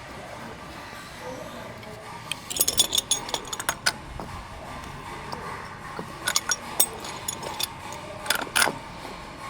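Small metallic clinks and knocks of plumbing fittings and tools being handled, coming in three short flurries of clicks.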